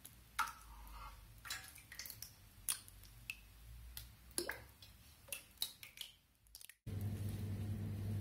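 Mashed banana juice draining through a single layer of muslin into a pot: scattered soft drips and small wet squelches. About seven seconds in, the sound changes to a steady low hum.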